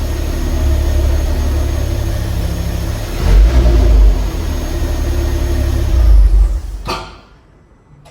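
Ford Focus ST225's 2.5-litre turbocharged five-cylinder engine running, rising in revs twice. The sound stops abruptly about seven seconds in.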